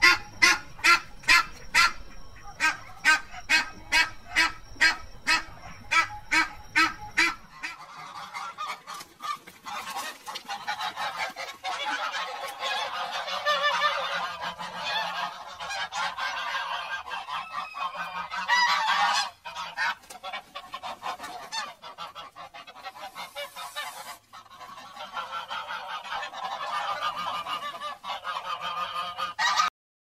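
Waterfowl calling: a run of evenly spaced honking calls, about two a second, for the first seven or eight seconds, then a dense chorus of many overlapping calls from a flock.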